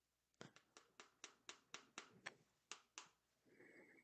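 Claw hammer tapping a small tack into a wooden canvas stretcher frame: about a dozen light, quick taps, roughly four a second, that stop about three seconds in.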